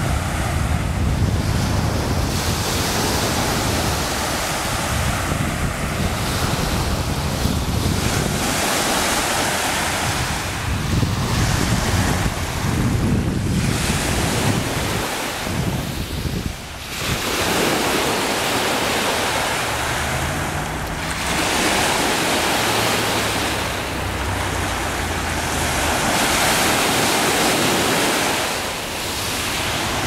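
Small waves breaking and washing up a pebble beach, the surf swelling and ebbing every few seconds. Wind rumbles on the microphone, heaviest in the first half.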